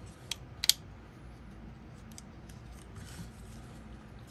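Plastic parts of a Transformers Studio Series Blitzwing figure clicking as they are moved during transformation: two sharp clicks within the first second, then faint handling and rubbing of the plastic.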